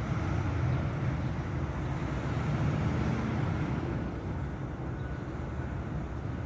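Steady low rumble of outdoor noise, with no distinct events.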